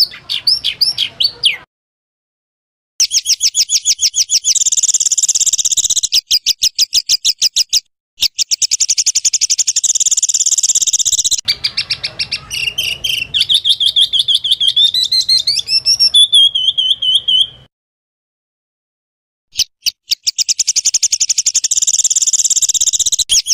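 Songbird calls edited together into a masteran bird-song tutor track: rapid-fire trills of sharp, high chirps in several bursts, each starting and stopping abruptly. In the middle comes a varied phrase that rises in pitch and ends in a short run of repeated whistled notes, and twice the sound cuts out to silence for a second or two.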